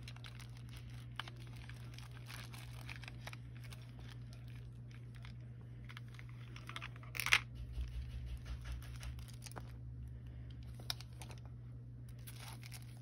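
Soft rustling and crinkling of a cloth drawstring bag and the plastic wrappings of diamond-painting tools as they are handled and pulled out, with scattered light clicks and a sharper crinkle about seven seconds in. A steady low hum runs underneath.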